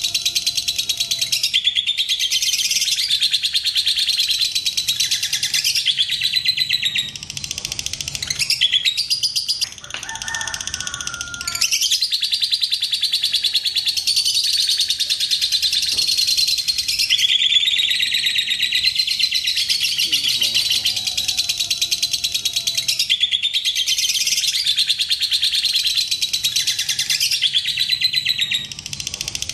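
Fischer's lovebird singing its long 'ngekek' song: a very rapid, high chattering trill held in long unbroken runs, with brief pauses about seven, ten and twenty-eight seconds in.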